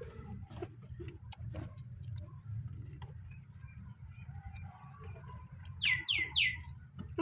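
A small bird chirps three times in quick succession near the end, each note sweeping down in pitch. Beneath it runs a steady low hum with scattered soft clicks.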